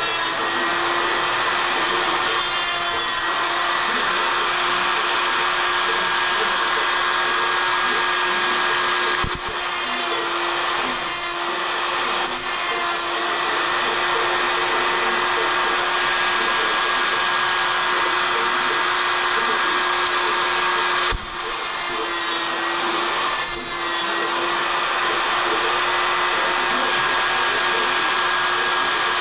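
Small electric angle grinder running steadily with a constant motor whine, and several short harsh bursts as the disc bites into a metal piece held in a vise.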